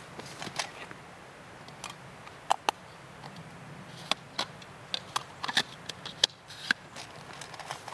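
Irregular sharp clicks and ticks, about a dozen, some in quick pairs, over a faint steady background.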